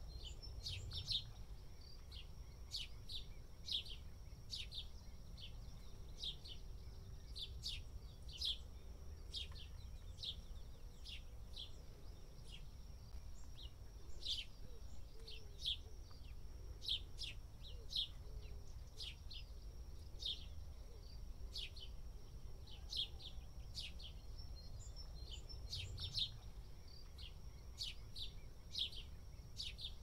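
House sparrows chirping: short, sharp cheeps in irregular clusters, a few every couple of seconds, over a steady thin high tone and a low background rumble.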